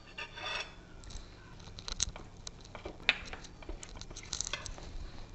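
Water poured into a stainless steel bowl near the start, then a metal hand masher squishing the wet mash, with irregular clinks and knocks of metal against the bowl.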